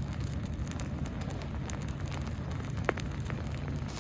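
Pajeon batter frying in oil on a cast-iron griddle: a steady sizzle with scattered small pops.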